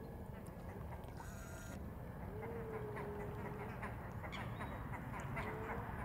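Waterbirds calling on a lake, with a short harsh call about a second in and scattered calls in the second half, over a steady low rumble. A long steady mid-pitched tone sounds a couple of seconds in and a shorter one near the end.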